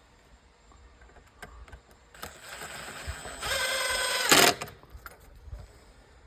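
Cordless drill driving a screw into gate hardware: the motor whines steadily for about a second just past the middle of the clip, then ends in a short, very loud burst.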